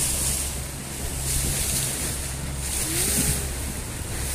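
Speedboat under way on choppy water: a steady low engine drone under rushing wind and water noise that swells every second or so as the hull rides the waves.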